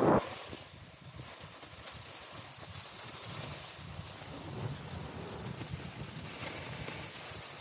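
Snowboard sliding and carving on groomed snow: a steady scraping hiss that rises and falls through the turns, over low wind rumble on the microphone. A short, loud burst comes right at the start.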